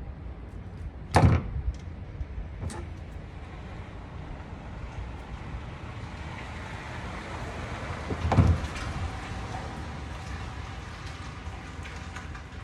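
Two loud thumps about seven seconds apart, the second a little longer, over a steady background noise.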